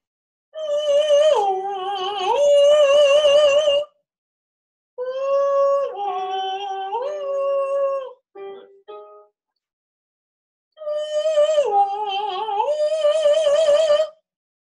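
A voice sings a vocal exercise three times on a vowel. Each time it holds a high note with vibrato, drops lower and climbs back to the high note. A few short keyboard notes sound between the second and third phrases.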